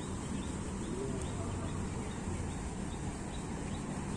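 Steady outdoor background noise, heaviest in the low rumble, with faint small bird chirps repeating every half second or so.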